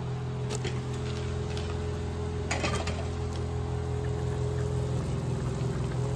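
A steady low drone with a few light clicks and knocks, the loudest about two and a half seconds in.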